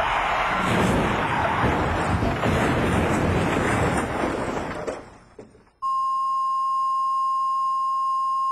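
A loud, dense noise fades away over about a second, and then, about six seconds in, a steady single-pitched beep switches on abruptly and holds, like a 1 kHz test tone or censor bleep.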